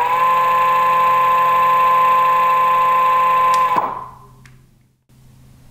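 Brushless 150 W hub motor of an electric skateboard spinning its wheel freely in the air at the top of three speed settings: a steady electric whine that settles in pitch just after the start. About four seconds in it cuts off and fades away as the wheel winds down.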